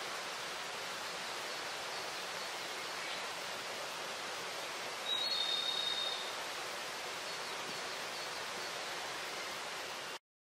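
Steady rushing outdoor forest ambience, an even hiss like distant running water, with a bird giving one short high call about five seconds in. The sound cuts off suddenly near the end.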